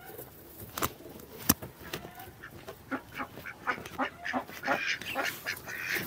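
Birds calling in short, scattered calls, mixed with light clicks and rustles of dry straw being handled on a wooden board.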